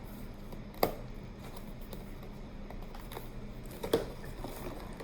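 Cardboard advent calendar box being handled and opened: two sharp clicks about three seconds apart, with faint small handling noises between.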